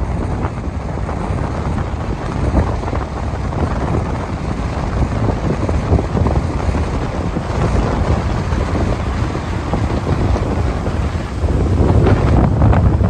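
Rough sea surf breaking and washing on a rocky shore, with strong wind buffeting the microphone in a steady low rumble that grows louder near the end.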